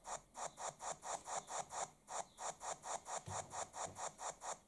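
Hornby HM7000 sound decoder playing its LNER W1 steam locomotive sound file through a small speaker: an even run of steam chuffs, about four a second. The decoder is plausibly running on its power bank after the track power has been turned off.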